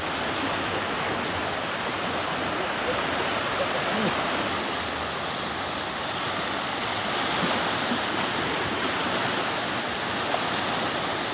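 Steady rushing noise of sea water, with no distinct wave breaks.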